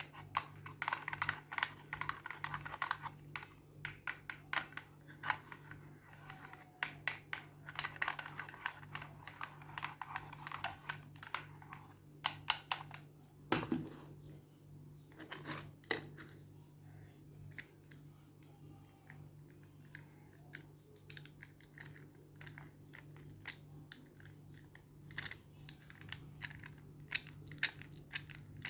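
Toy packaging being handled and opened: crinkling and tearing with many small clicks and taps, and one louder knock about halfway through, over a steady low hum.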